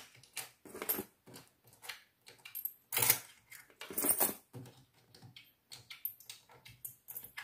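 Loose coins clinking as they are gathered into a pile on a tabletop: a run of irregular metallic clicks, loudest about three seconds in and again about four seconds in.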